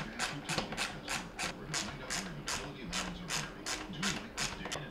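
Socket ratchet with a 3/16-inch socket being worked back and forth to back out a mounting bolt, its pawl clicking steadily at about four clicks a second.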